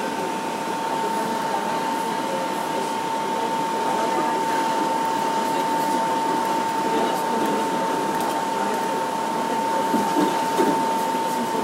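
Subway train running along elevated track, heard from inside the car at the front window: a steady whirring rumble with one constant high tone held throughout, and a few faint clicks near the end.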